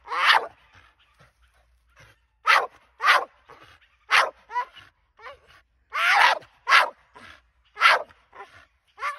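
Staffordshire bull terrier barking repeatedly: about eight sharp barks at uneven intervals, with a few softer whining sounds between them.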